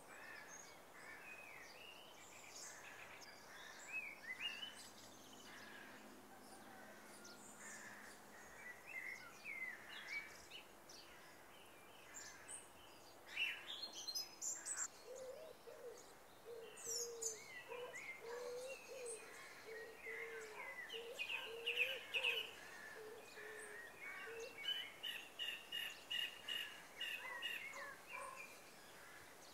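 Faint birdsong ambience: many small birds chirping and warbling over each other, with a lower, wavering call running through the middle stretch.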